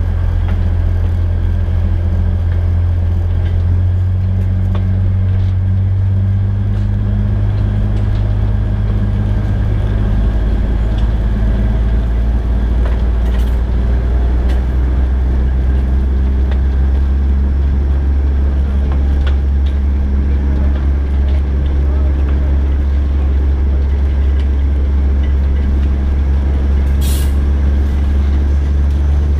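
DL-41 diesel locomotive engine running steadily under the cab, a deep low hum whose note drops about a third of the way in as the engine is throttled back. A brief hiss of air comes near the end.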